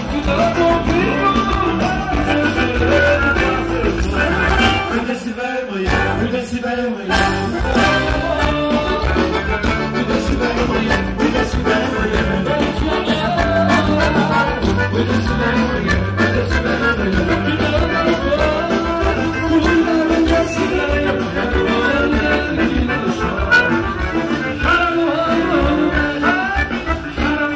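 Live dance-band music with a steady beat and a male singer, played loud. The low end briefly thins out about six seconds in.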